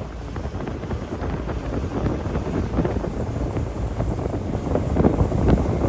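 Strong wind buffeting the microphone on an open ferry deck at sea: a gusty, uneven low rumble with scattered crackles.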